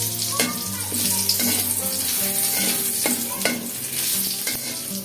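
Whole spices (dried red chillies, bay leaves, cardamom, cinnamon and cumin) sizzling in hot oil in an aluminium karai, the tempering (phoron) being fried. A metal spatula scrapes and taps the pan about once a second as the spices are stirred.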